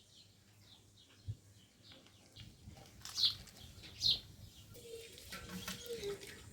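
Small birds chirping outdoors in short, high, falling chirps, with two louder chirps about three and four seconds in.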